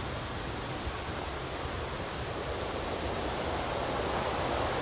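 Wind rushing steadily through the pine trees, growing a little louder in the second half.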